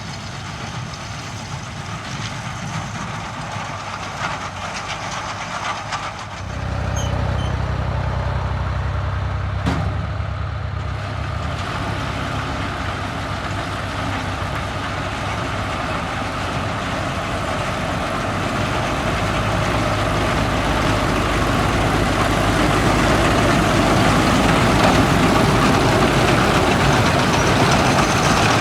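John Deere 5820 tractor engine running under load while a Krone round baler works hay. About six seconds in, a deep engine drone comes in and the level steps up; there is a single sharp knock a few seconds later, and the machinery noise builds gradually toward the end.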